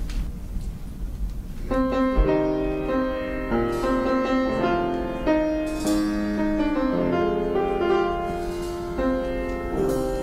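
Piano playing the introduction to a Yiddish art song in slow, sustained notes and chords, starting about two seconds in after a low room rumble.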